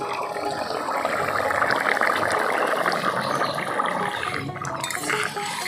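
Bottle-gourd fish curry boiling in a large metal karahi: a steady, dense bubbling that swells about two seconds in and eases near the end.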